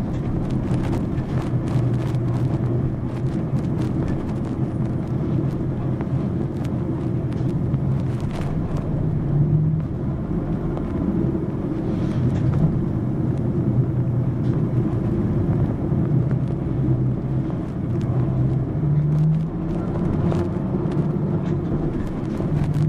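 Mitsubishi Fuso PA-MK25FJ bus's diesel engine running as the bus drives, with road rumble. The engine note rises in pitch about ten seconds in and again near twenty seconds as the bus pulls, then settles back.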